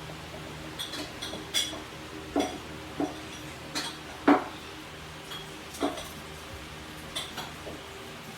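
A series of irregular sharp clinks and knocks of hard objects being handled, the loudest about four seconds in, over a faint steady hum.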